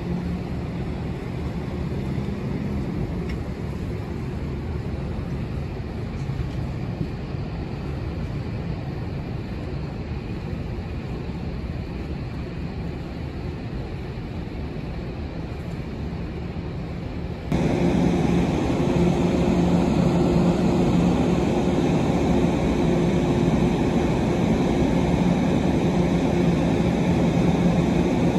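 Steady low hum and rumble of the ferry Sunflower Kirishima's engines and machinery, heard from the open deck while the ship berths. About two-thirds of the way in it jumps suddenly louder and fuller.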